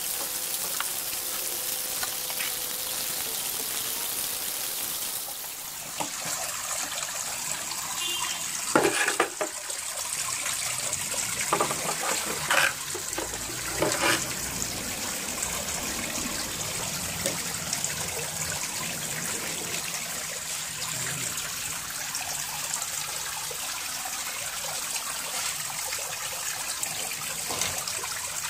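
Plywood boards knocking and scraping as they are handled and laid against each other on grass, with a few sharp knocks in the middle, over a steady background hiss.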